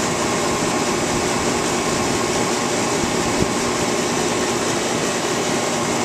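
A 3-ton Ruud air-conditioning condenser running steadily: compressor and condenser fan pushing a strong rush of air through a transition into an evaporator coil, with a faint steady hum underneath. One small tap about halfway through.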